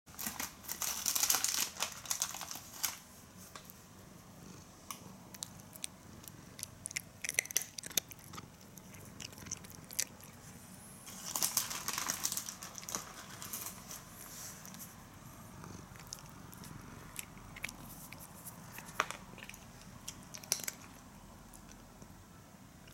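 A cat chewing and crunching food: irregular small crunches and clicks. They come thickest near the start, around the middle and shortly before the end.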